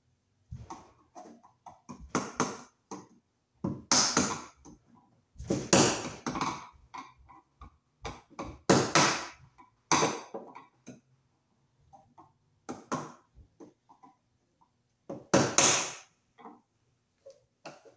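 Pliers working at a metal electrical junction box, prying open a hole in it. There is an irregular series of metal scrapes and clanks, some sharp and some drawn out, with the heaviest a few seconds apart.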